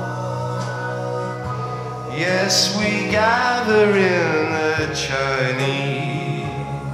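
Live rock band playing held chords, with a male singer's wordless vocal line that slides and wavers from about two seconds in.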